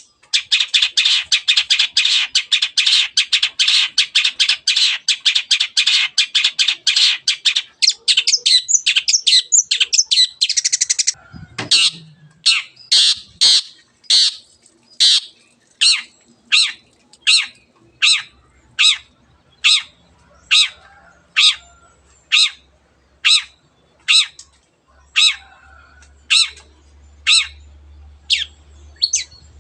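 Long-tailed shrike (cendet) singing. It gives a fast, dense run of harsh chattering notes for about the first eleven seconds, then switches to single sharp calls repeated about one and a half times a second.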